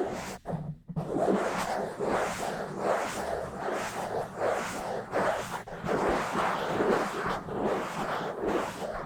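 Fingers scratching and rubbing fast and roughly on a bare microphone, a rapid run of rough scratchy strokes with a brief break about half a second in.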